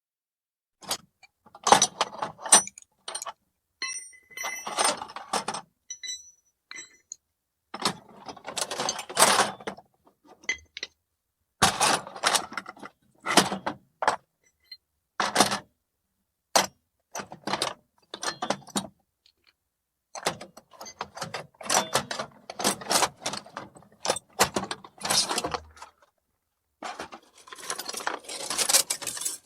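Hands rummaging through a toolbox of metal tools and loose screws: irregular bursts of clattering and jangling metal, with short pauses between handfuls and a few small pieces ringing briefly.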